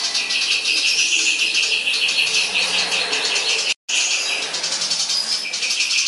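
Caged songbird singing a fast, dense, chattering song of high notes, filled with mimicked sounds of fighting tree sparrows. The sound drops out for an instant about four seconds in.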